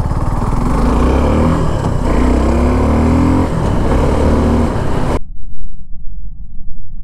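Suzuki Gixxer SF 250's single-cylinder engine running, then pulling away with the revs rising several times through the gears. About five seconds in it cuts off abruptly, replaced by a loud, deep rumbling sound.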